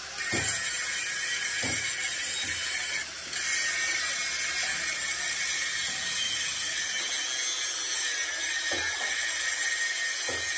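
Handheld angle grinder grinding the steel of an excavator bucket, a steady high-pitched grinding whine that eases off briefly about three seconds in.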